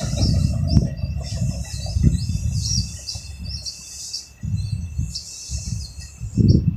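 Small birds chirping in quick, short, high chirps, repeated throughout, over an uneven low rumble that swells and fades and is loudest near the end.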